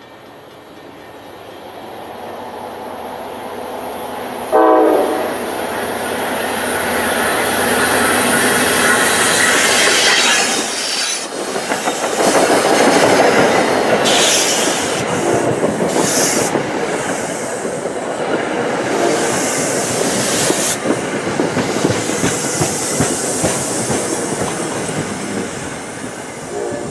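An NJ Transit commuter train led by a PL42AC diesel locomotive approaches and passes close by. A short horn blast sounds about four and a half seconds in, then the locomotive goes by, followed by Comet V coaches rumbling past with wheel-on-rail noise and brief high wheel squeals.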